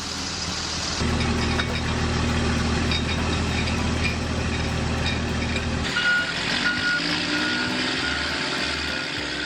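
Truck engine running steadily, then about six seconds in a reversing beeper starts, beeping at an even pace over the engine.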